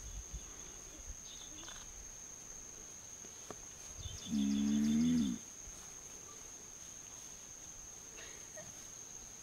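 Male Galapagos giant tortoise bellowing while mating: one drawn-out low call lasting about a second, a little before halfway, over a faint steady high-pitched hum.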